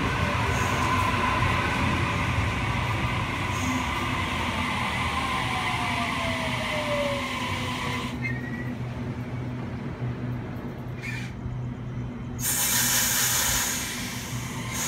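A Sydney Trains double-deck electric train running along a platform: a steady rumble with a faint motor whine that slowly falls in pitch. About twelve seconds in, a louder rush of train noise comes in for a second or two.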